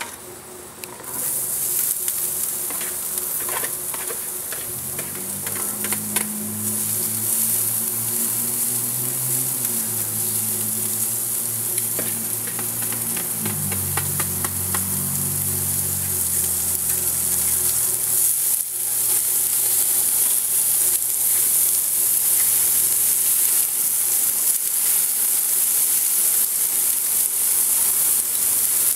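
Vegetables sizzling in a perforated stainless grill wok on a hot barbecue grill. The sizzle starts suddenly about a second in, as they go into the hot pan, and goes on steadily. Scattered clicks and scrapes come through it over the first several seconds.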